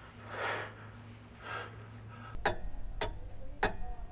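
Wall clock ticking: sharp, evenly spaced ticks, a little under two a second, starting about halfway through. Before the ticks, soft breathing.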